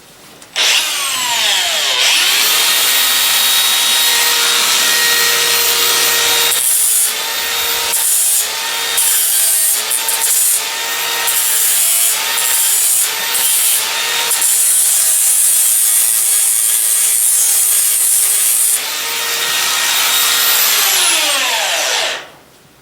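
Electric hoof grinder switched on, running at speed, and pressed against a horse's hoof in several short passes. Its motor pitch dips with each grinding contact. Near the end it is switched off and winds down.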